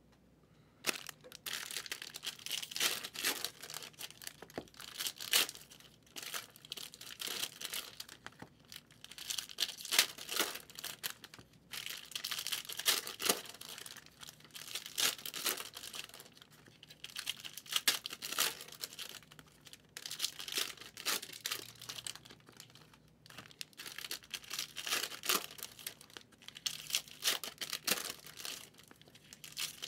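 Trading-card pack wrappers crinkling and being torn open, in repeated spells of a few seconds each with short pauses between, starting about a second in.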